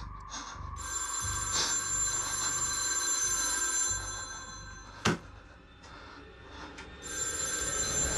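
Rotary-dial desk telephone's bell ringing: two rings a few seconds apart, with a single sharp knock in the pause between them.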